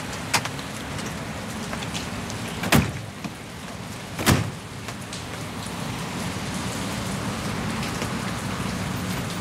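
Steady rain falling, with two sharp knocks about two and three-quarter seconds and four and a quarter seconds in.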